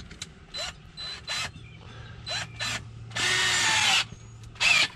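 Cordless drill tightening the screw of a pipe clamp on a sump pump's discharge riser. It starts with several short trigger pulls, runs steadily for about a second a little past three seconds in, then gives one more short pull near the end.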